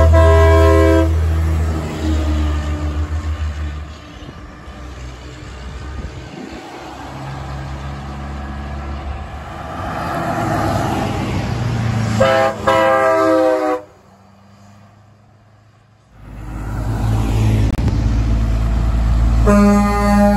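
Tractor-trailer air horns sounding over diesel engine rumble as semis pull away: a Peterbilt 379's air horn in the first second, another horn blast about twelve seconds in, and near the end a Western Star 4900FA's two Grover 1045 air horns.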